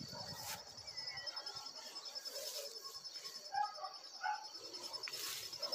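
Rural outdoor ambience: a steady, high-pitched pulsing insect trill with scattered bird chirps, and two short louder sounds about three and a half and four seconds in.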